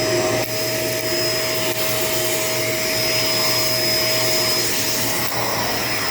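Shark LA702 Lift-Away upright vacuum running steadily: an even rush of air with a steady high whine from the motor. The sound dips briefly twice in the first two seconds.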